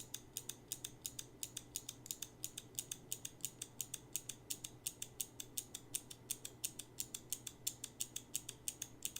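SKCM Blue Alps clicky keyboard switch pressed and released over and over, giving a steady run of sharp, high clicks several times a second.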